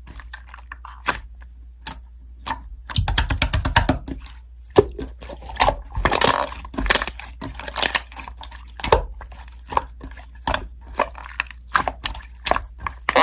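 Slime being squished and stretched by hand: a run of irregular sticky clicks and pops, with a dense crackling stretch about three to four seconds in.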